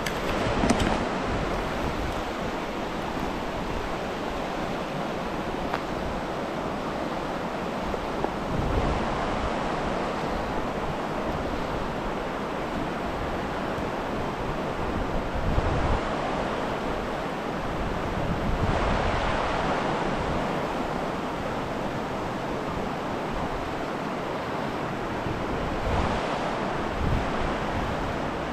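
River rapids rushing in a steady roar of water, with wind now and then buffeting the microphone in low rumbles.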